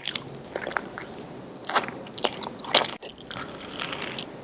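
Close-miked eating sounds: a person biting into and chewing crisp food, with several sharp crunches, the loudest about two seconds and three seconds in.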